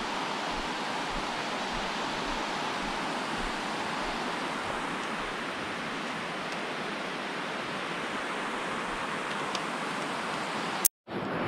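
Water rushing steadily down a concrete spillway. Near the end, a sharp click and a split second of silence.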